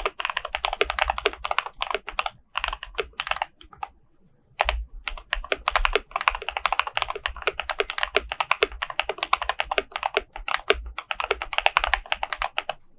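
Fast continuous typing on a KBD67 Lite R2 mechanical keyboard with lubed Cobalt POM linear switches on a polycarbonate plate, PBT keycaps, and foam- and tape-dampened case: a quick run of key clacks, pausing briefly about four seconds in.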